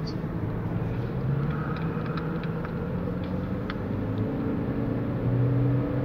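Car engine and road noise heard from inside a moving car: a steady low rumble, with the engine note rising and getting louder near the end as the car speeds up.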